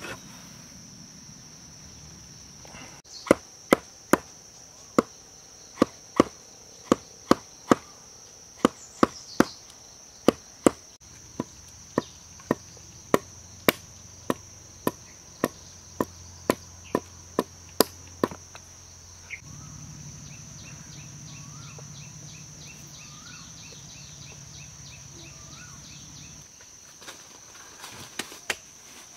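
A stone knocking hard against a wooden log, some two dozen sharp strikes at roughly two a second, stopping near the middle. A steady high-pitched insect drone runs underneath.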